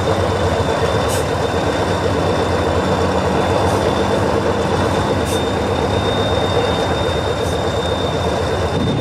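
Tatra 815 six-wheel-drive trial truck's diesel engine running steadily under load as the truck crawls up a dirt bank, with a few faint ticks on top.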